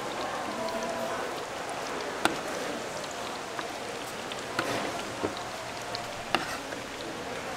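Hot oil sizzling steadily as Korean fried food (twigim) deep-fries, with a few sharp clicks and knocks scattered through.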